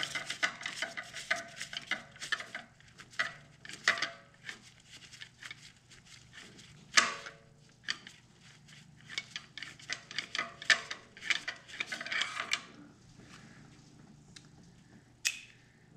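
Hand ratchet clicking and metal tools clinking while spark plugs are worked out of the engine, with one sharper knock about seven seconds in; the clicking thins out near the end.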